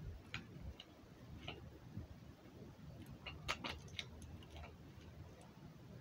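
Faint clicks and light crackles of a small plastic bottle being handled, with a short cluster of sharper clicks a little past halfway.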